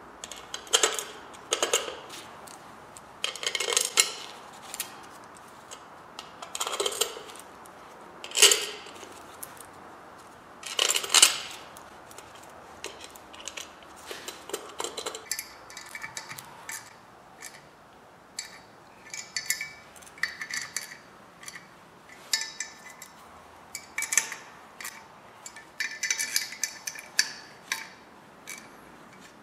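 Small metal bolts and a steel brake disc's hub being handled by hand: irregular clinks and scraping. Longer scraping strokes come in the first half, then quicker ringing clinks.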